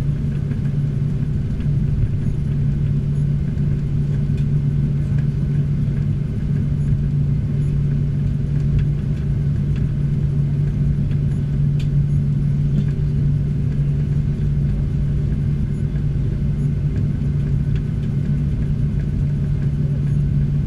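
Boeing 737 jet engines idling, heard inside the passenger cabin as a steady low hum with one constant drone.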